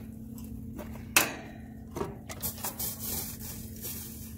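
Water squirted from a squeeze bottle onto hot copper refrigerant pipe at a heat pump's reversing valve, hissing in short bursts as it hits the metal. The loudest hiss comes about a second in and a smaller one about two seconds in, over a steady low hum.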